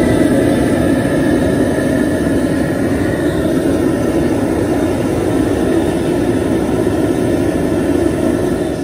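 Propane jet burner running at full flame with a steady, loud rushing noise, just lit to bring the crawfish boil water back up to a boil.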